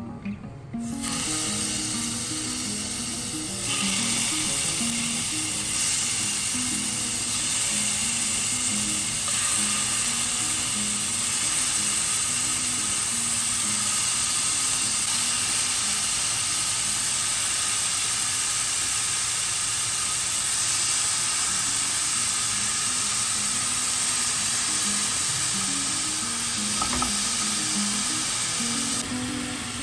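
Thin slices of marinated chicken frying in olive oil in a pan: a steady, loud sizzle that starts about a second in and grows louder a few seconds later.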